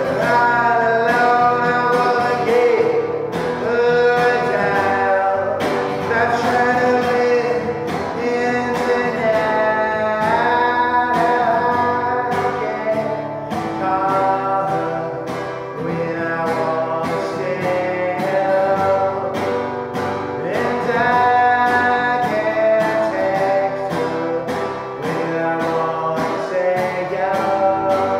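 A man singing loudly while strumming an acoustic guitar, the voice drenched in reverb.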